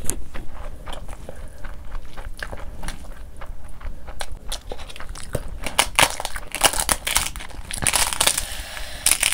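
Close-miked eating sounds: chewing with the mouth full, and wet squishing as fingers mix rice with curry. A steady run of quick clicks and smacks, busiest about six and eight seconds in.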